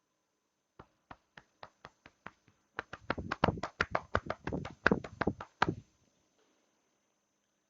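A run of sharp hand taps: a few light ones about four a second, then about three seconds of louder, quicker strikes that stop suddenly.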